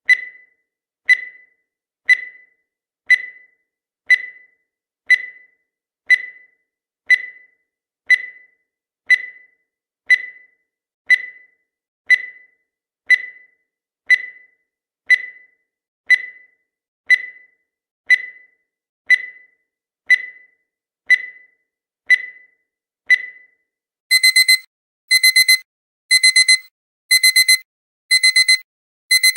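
Countdown timer sound effect: a short, high tick once a second for about 24 seconds. Then the time-up alarm beeps in quick groups of four, about once a second.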